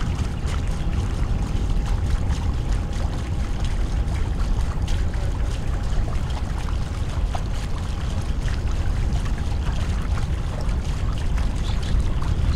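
Water sloshing and trickling against a boat's hull, with many small splashes over a steady low rumble.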